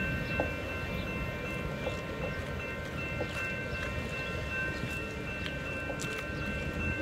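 Electronic railroad crossing warning bell ringing steadily while the crossing gates lift, the sign that the train has cleared the crossing. A low, even rumble lies beneath it.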